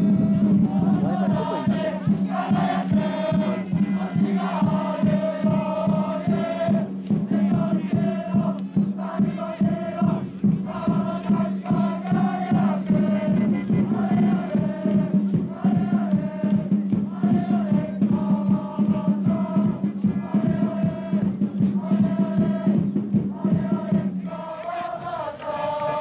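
A crowd of supporters chanting and singing in unison over a fast, steady drum beat and a held low drone. The chant stops about two seconds before the end.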